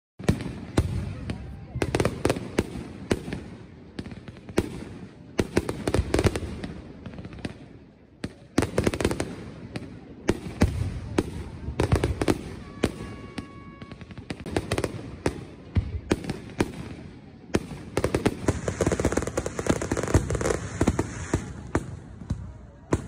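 Aerial fireworks display: volleys of sharp shell bursts and crackling, with many bangs bunched together every few seconds and a denser, louder stretch of crackle near the end.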